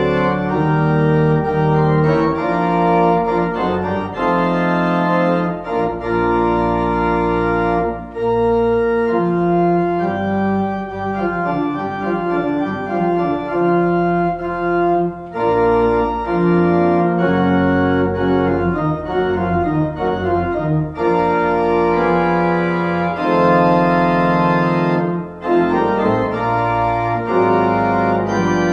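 Organ music: slow, held chords that change every second or two over low sustained bass notes, with brief breaks between phrases.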